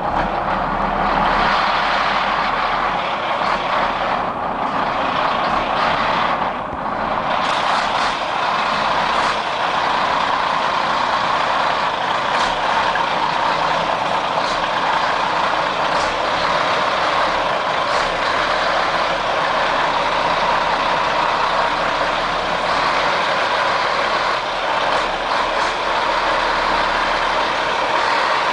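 DAF 95XF 480 truck's straight-six diesel engine running at low revs while the lorry manoeuvres slowly. The sound is a steady, continuous engine note.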